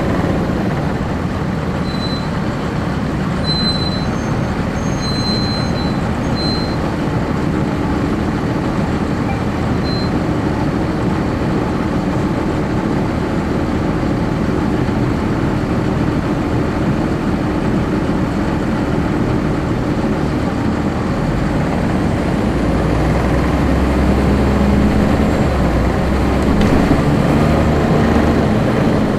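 1999 Nova Bus RTS with a Cummins ISC inline-six diesel, heard from the rear seats inside the bus as it drives, engine running steadily. A few short high-pitched squeaks come in the first several seconds, and about two-thirds of the way through a deeper rumble builds as the engine pulls harder and its pitch climbs slightly.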